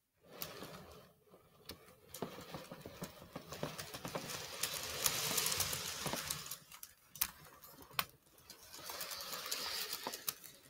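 HO scale model train rolling around a small loop of track, its wheels clicking and rattling on the rails with a steady rushing hiss, growing louder twice as the train comes past close by.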